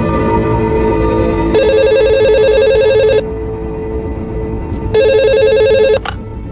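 Telephone ringing in two bursts of fast trilling, the first about a second and a half long and the second about a second, over a steady, low music drone. The second ring stops abruptly as the call is picked up.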